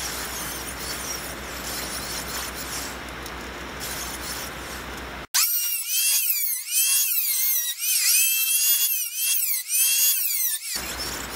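Electric hand planer cutting sassafras wood: a high motor whine that dips in pitch and recovers several times as the blades bite, starting suddenly about five seconds in. Before that, a steady hiss with a low hum.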